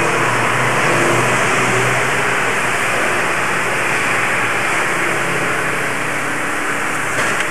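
DR class 03.10 steam locomotive 03 1010 standing with steam hissing steadily and loudly, with a faint low hum underneath.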